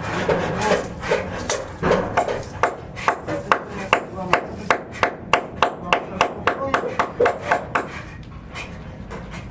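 Hammer blows on wood in a quick, even run, about three to four a second, for several seconds in the middle.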